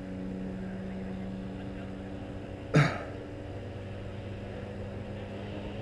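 Steady low engine hum in the background, with one sharp knock or bump a little before the middle, the loudest sound of the moment.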